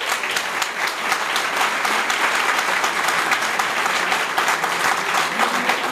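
An audience applauding, with many hands clapping in a dense, steady patter that holds at an even loudness throughout.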